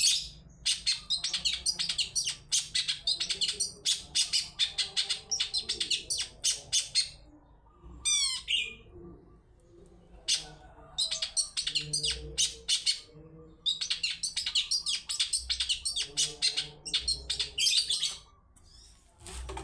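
Long-tailed shrike (cendet) singing in fast runs of sharp chirping notes, broken by short pauses, with a brief series of sweeping whistles about eight seconds in. It is a lure song meant to set a kept shrike singing in reply.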